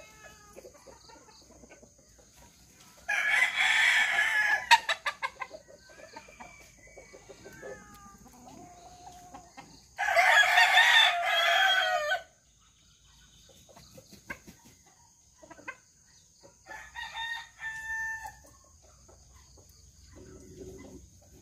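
Roosters crowing: two loud crows of about two seconds each, some seven seconds apart, the first breaking up into a stuttering end. Fainter, shorter fowl calls follow later.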